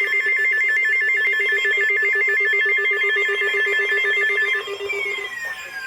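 Electronic warbling ring: a high tone flipping rapidly between two pitches over a steady low buzz, stopping about four and a half seconds in. A falling, whistle-like glide follows near the end.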